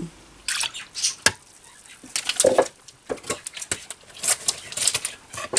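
Kitchen handling noise: a string of short, irregular taps, clicks and rustles as a pot, a bowl and a pudding packet are handled.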